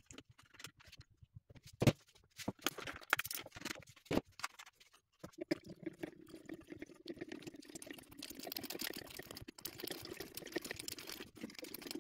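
Plastic power-steering fluid reservoir on a Mercedes M272 engine being worked loose, with a few sharp clicks and knocks, then hydraulic fluid sloshing inside it from about five seconds in as it is lifted out.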